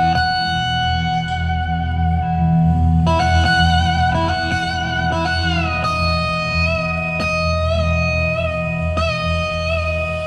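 Electric slide guitar playing long held notes with wide vibrato, gliding down in pitch about halfway through, over bass and drums in a live band.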